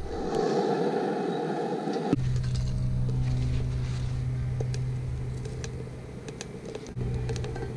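Small 12-volt fan running, forcing air into a rocket stove: first a rushing of air, then from about two seconds in a steady low hum with a few faint clicks.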